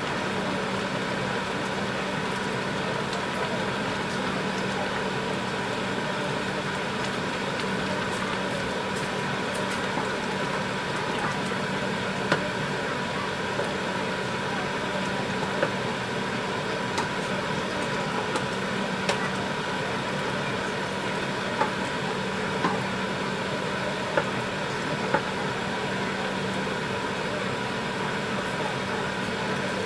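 Thick tteokbokki sauce simmering in a pot, with small bubbles popping every second or two from about ten seconds in, over a steady mechanical hum.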